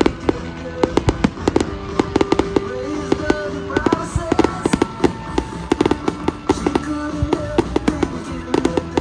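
Fireworks crackling and popping in a fast, irregular string of sharp reports, with music playing along with the display.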